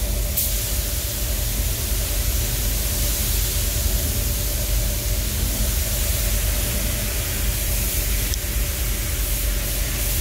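Steady rushing hiss of air in an automotive paint spray booth, with a constant low hum underneath.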